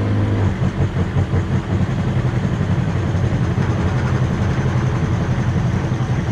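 Electric water pump running with a low hum that turns rougher and unsteady about half a second in, as it pumps water from the tank to the tap.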